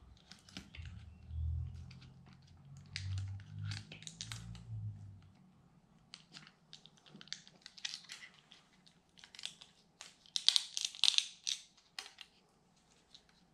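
Hands working a small LiPo battery into a micro quadcopter's snug plastic frame: a string of small plastic clicks, scrapes and crinkles, densest about ten to eleven seconds in, with low dull bumps in the first five seconds.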